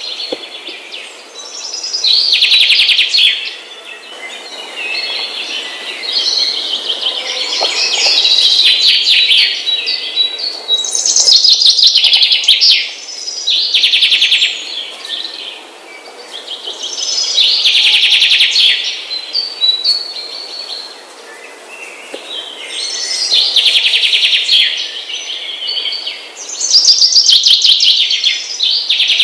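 Many small birds chirping together in loud, dense swells that rise and fall every few seconds.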